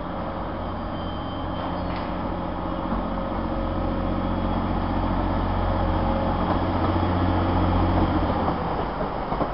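Class 185 diesel multiple unit's underfloor diesel engines running with a steady low drone that grows slowly louder until about eight seconds in, then eases slightly.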